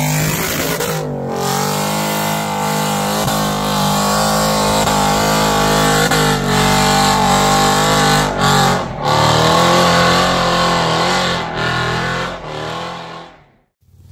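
Off-road 4x4's engine revving hard under load, its pitch wavering up and down, with brief throttle lifts about a second in and again around nine seconds. The sound cuts off suddenly near the end.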